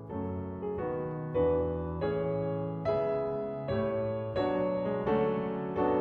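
Background piano music: a slow line of single notes and chords, each struck and left to fade.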